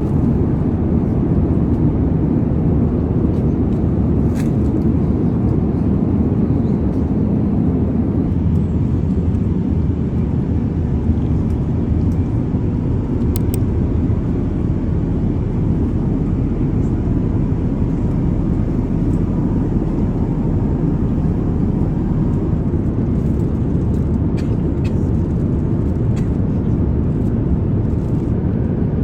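Steady low roar inside the cabin of an Airbus A350-900, from its engines and the airflow around it, with a few faint clicks.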